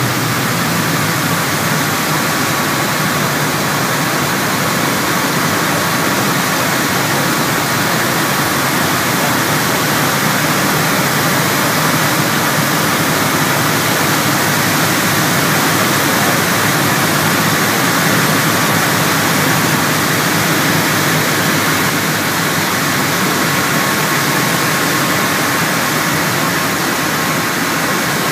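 Steady cabin drone of a Piper Seneca's twin piston engines and propellers in flight, heard from inside the cockpit, with a faint steady high tone running through it.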